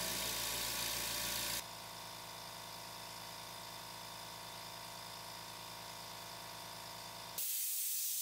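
Ultra-quiet oil-free air compressor's motor-pump running with a low hum, then cutting off abruptly about one and a half seconds in, leaving a steady hiss of air. The cut-off comes as the tank reaches its roughly 120 PSI shut-off pressure. A brighter, louder sound returns near the end.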